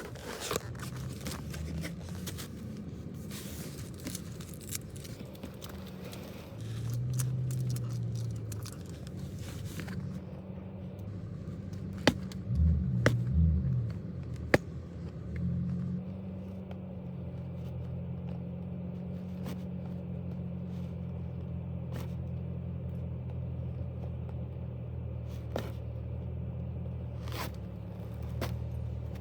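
Steady low rumble like a car's engine and road noise heard from inside the cabin, with scraping and rustling as a package is handled and a few sharp clicks.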